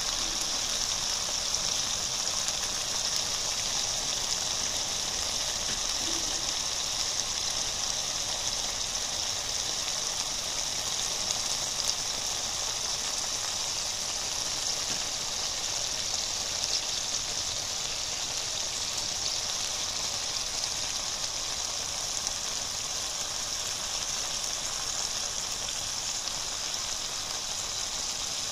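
Minced pork and tomato chili sauce (nam prik ong) simmering and sizzling in a wok, a steady bubbling hiss.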